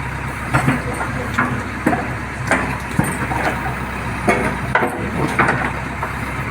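JCB backhoe loader's diesel engine running steadily under work, with irregular sharp knocks and clunks, about a dozen, from the machine working at concrete.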